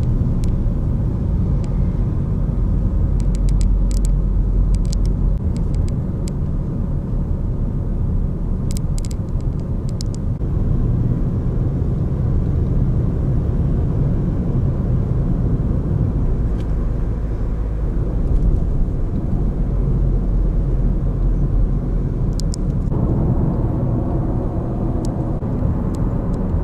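Car driving along a highway: steady road and engine rumble, with a few light clicks.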